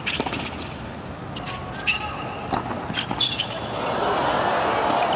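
Tennis rally on a hard court: racket strokes on the ball a second or so apart, with sneakers squeaking. The crowd noise swells about four seconds in.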